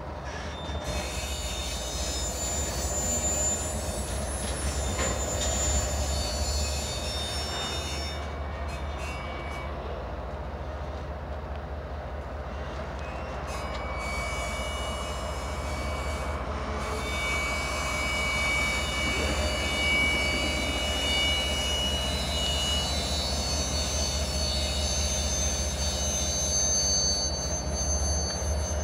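BNSF intermodal freight train rolling along the track: a steady low rumble of the cars with high-pitched steel wheels squealing against the rails, several squeals overlapping and coming and going.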